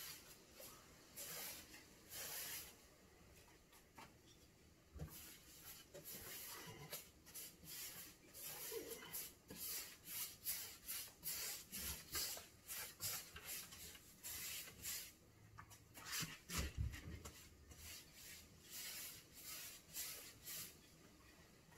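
Paintbrush bristles stroking paint onto a cabinet panel: a run of short, soft swishes, about two or three a second through the middle stretch, with a low bump about two-thirds of the way through.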